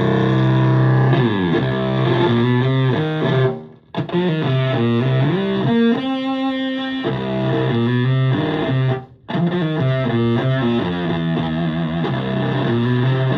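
Stratocaster electric guitar in Drop C played through a germanium Fuzzrite fuzz pedal (AC128 and OC75 transistors) into an Ampeg VT22 amp and 4x12 cabinet, giving a heavily fuzzed tone. A held chord rings for about a second, then gives way to a riff of sliding notes. The playing stops briefly twice.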